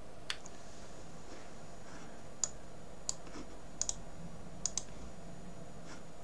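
Computer mouse clicks: about nine short sharp clicks at irregular intervals, some in quick pairs, over a faint steady background hiss.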